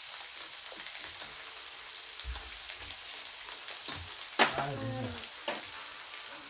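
Metal spoons clinking and scraping in bowls during eating, with scattered small clicks over a steady hiss. One sharp, louder clink comes a little past four seconds in, followed by a brief pitched sound.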